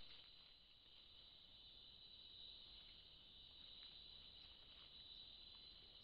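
Faint, steady high-pitched buzzing of night insects, a cricket-like chorus, with a few faint ticks.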